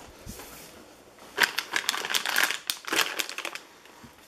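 Plastic packaging and storage-drawer contents being handled, a dense run of crinkling and clicking lasting about two seconds from just over a second in.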